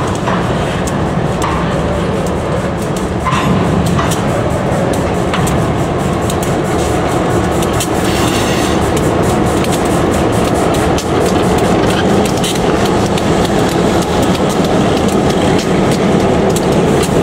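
Three EMD GP11 diesel locomotives passing while shoving a string of covered hoppers, engines running steadily under the clicking of wheels over the rail joints.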